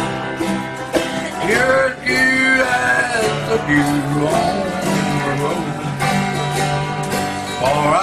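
Acoustic bluegrass string band playing, guitars strumming under a lead line that slides up between notes about two seconds in and again near the end.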